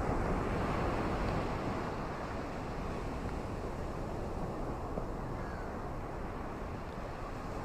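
Ocean waves washing onto a beach: a steady surf wash, slightly louder in the first second or so as a wave comes in.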